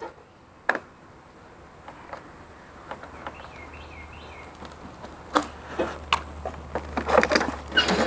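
Sharp clicks and knocks as the John Deere riding mower's key and pedal are worked, a few at first and then bunching up over the last three seconds, with a bird chirping briefly about midway; the mower does not crank or run.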